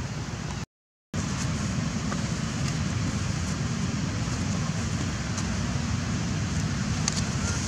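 Steady outdoor background noise, a low rumble with an even hiss over it, with no voices or calls. The sound drops out completely for about half a second near the start, at a cut.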